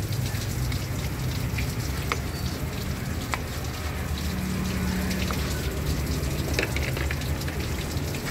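Water running from a hose while a bristle brush scrubs soapy cleaner over a metal engine valve cover, with a steady low hum underneath and scattered small clicks.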